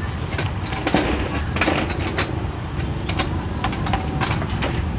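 Busy street-food market background: a steady low rumble with scattered sharp clinks and knocks, densest about a second and a half in and again in the second half.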